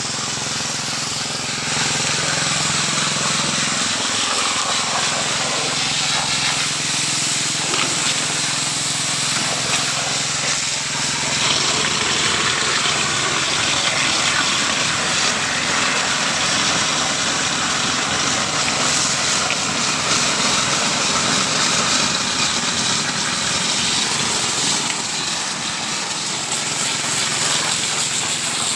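Robin small engine running steadily under load, driving a gold-suction pump, with a steady hiss over the engine note.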